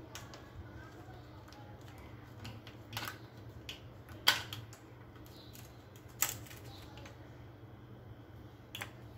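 Plastic ice cube tray being twisted and handled to free an ice cube: a few sharp clicks and cracks, the loudest about four seconds in, over a steady low hum.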